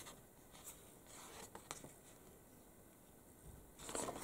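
Quiet handling of a glossy magazine's paper pages, a few faint rustles and light ticks, then a page being turned near the end with a louder papery swish.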